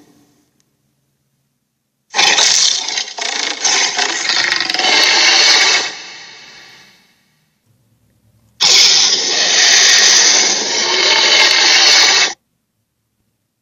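A toy's electronic sound effect played twice through its small speaker, each a loud, noisy burst of about four seconds; the first fades out, the second stops abruptly.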